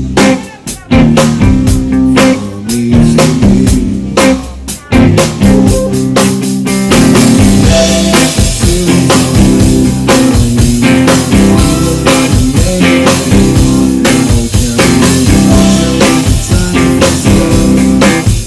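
Live rock band playing an instrumental stretch with electric guitar, drum kit and bass: choppy stop-start hits for the first several seconds, then steady full-band playing.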